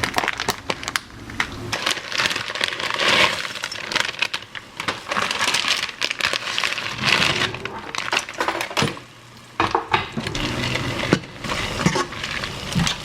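A busy run of sharp clicks, clinks and crinkling, crackling handling noises, with a short lull about two thirds of the way through.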